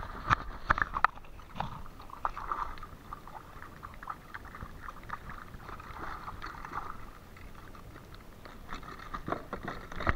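Irregular clicking, ticking and knocking from a fishing reel and rod being worked in a canoe while a brook trout is reeled in and netted. There is a cluster of louder knocks in the first second.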